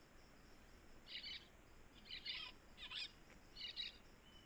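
Faint songbird calls: four short, high chirping phrases in quick succession, from a bird-song recording laid under the footage.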